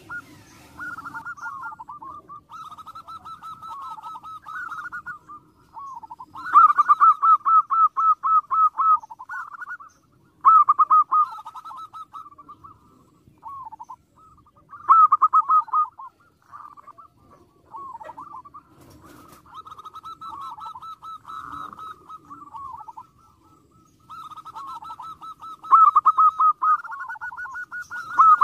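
Zebra dove song: repeated phrases of quick staccato coos, rolling on with short pauses. A few phrases are much louder than the softer ones around them.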